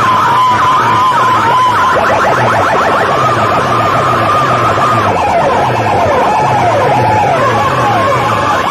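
Massed horn loudspeakers of a sound-box rig blaring electronic siren effects over a pulsing bass beat. A warbling siren tone gives way, about two seconds in, to fast repeated rising sweeps, with slower falling swoops in the middle.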